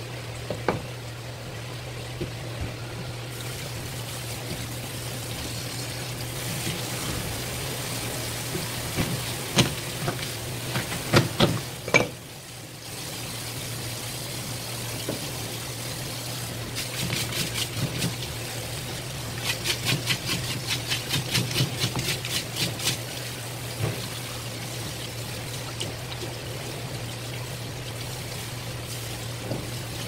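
Spray tap running water over a rock bream's head and pieces on a plastic cutting board, with a cluster of sharp knife knocks about ten seconds in as the head is cleaved. A run of quick rhythmic strokes follows in the second half, over a steady low hum.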